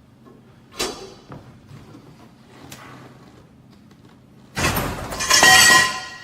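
Home elevator's safety gear catching the car on its steel guide rails as the hoist ropes are released: a sharp click just under a second in, then, about four and a half seconds in, a sudden loud metallic clatter and scrape with a brief ringing squeal, lasting about a second and a half. The sound of a simulated rope failure, the safety locking the car onto the rails.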